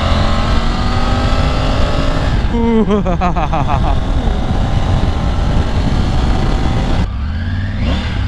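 Triumph Tiger's three-cylinder engine accelerating hard at highway speed, its pitch rising, with heavy wind noise on the helmet-mounted microphone. It then runs steadily at speed. Near the end, after a cut, the bike is at low speed and gives a short rev.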